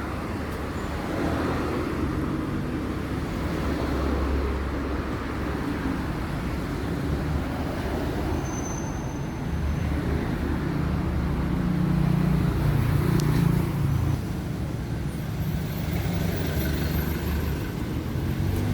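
Toshiba AW-SD150S 14 kg washing machine starting its spin cycle: a low rumble of the motor and drum that swells and eases, the machine now running normally after a new door switch cleared its E23 error.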